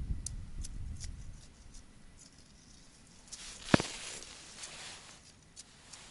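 Handling noises: a winter suit rustling and scattered light clicks, with one sharp knock under a brief rustle just under four seconds in.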